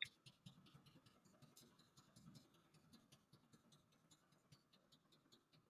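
Near silence: room tone, with a few faint sharp clicks in the first half second.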